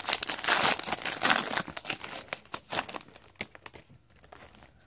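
Hockey card pack wrapper being torn open and crinkled by hand, densest for the first second and a half, then dying down to a few scattered crackles.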